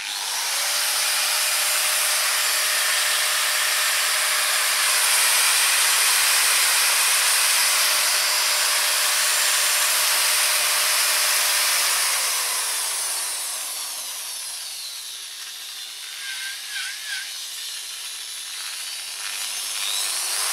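Bosch GWS 11-125 CE angle grinder's brushed motor free-running without a disc, a steady high whine. About two-thirds of the way in, its speed sags and then climbs back near the end. It runs evenly, without the jerking it had before its deformed commutator was skimmed.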